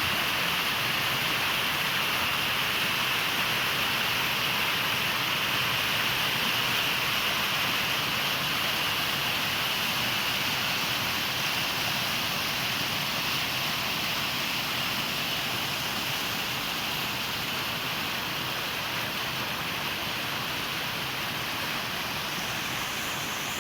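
River waterfall: water pouring steadily, an even rushing hiss with no breaks.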